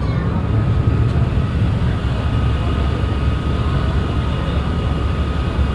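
A ferry boat's engine running steadily with a low rumble, and a thin whine joining it about a second and a half in.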